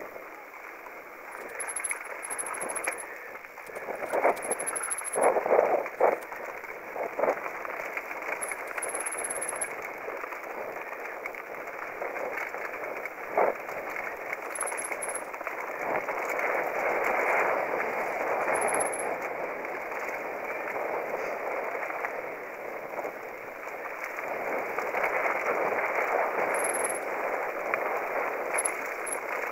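Mountain bike rolling down a rough, rutted dirt trail: a steady rumble of tyres on loose dirt and stones with the bike rattling, and a few sharp knocks over bumps, the loudest about five to seven seconds in.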